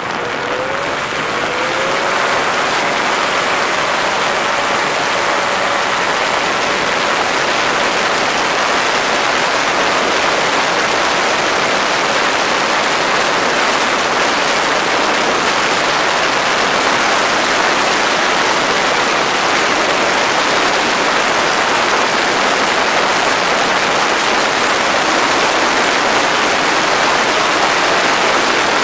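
X'Air microlight's engine and propeller running up on the ground to full throttle in a static RPM check after a propeller pitch adjustment. Prop wash gives a loud, steady rushing noise over the engine note, which climbs over the first couple of seconds and then holds.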